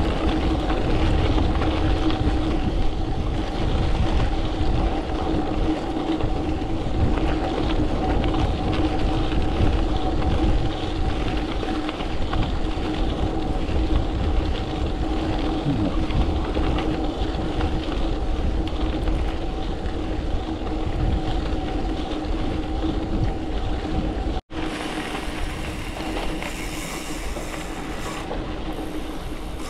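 Wind buffeting a bike-mounted camera's microphone over the steady rumble and hum of a gravel bike rolling along. About 24 seconds in the sound drops out for an instant and comes back quieter and hissier.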